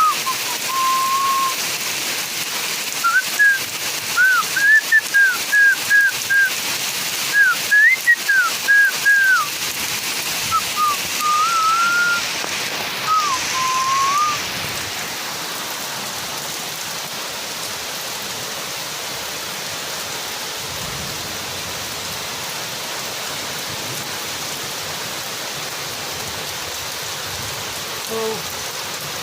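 Steady rain falling. For about the first half, a run of short whistled notes rises and falls over it; after that the rain is heard alone.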